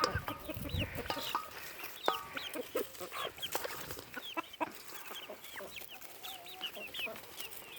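Young chicks peeping, many short high chirps in quick succession, mixed with a few lower hen clucks. There are some low knocks in the first second.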